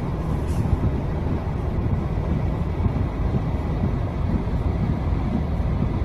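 Blizzard wind buffeting the microphone: a steady, low rushing noise.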